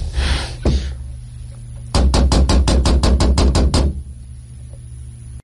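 Rapid knocking on a door, a run of about fourteen quick knocks lasting about two seconds, after a brief noise at the start.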